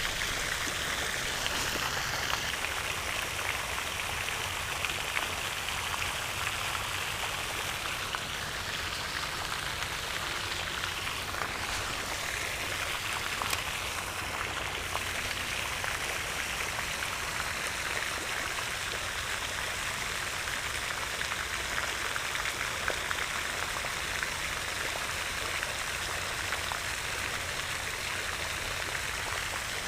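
Pond fountain splashing steadily, its water falling back onto the pond surface in a continuous patter.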